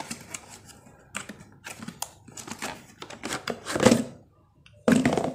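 Hands pulling a plastic-and-steel lunch box out of its cardboard box: irregular rustling, light taps and knocks of cardboard and plastic, with a louder knock near the end.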